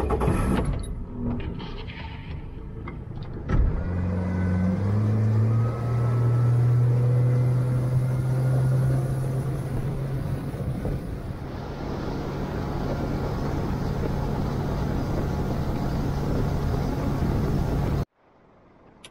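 Yamaha 100 hp outboard motor driving a boat: the engine note steps up in pitch as it is throttled up about four seconds in, then runs steadily at speed with wind and water noise. The sound cuts off suddenly near the end.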